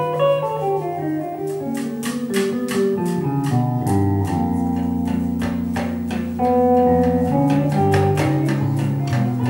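Live instrumental music: a plucked guitar melody over a bass line. A ticking percussion beat of about three strokes a second comes in after a second and a half.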